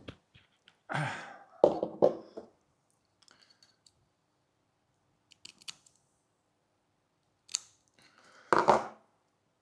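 Hands working tape and a Dyneema line at close range: scattered rustling scrapes and small clicks, with the louder scrapes about a second and a half in and near the end.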